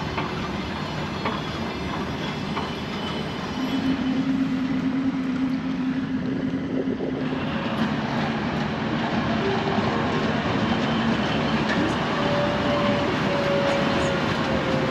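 Diesel trains at a station: a diesel multiple unit idling at the platform, then a twin-section diesel locomotive rolling slowly past close by, its engines droning steadily over the noise of its wheels on the rails.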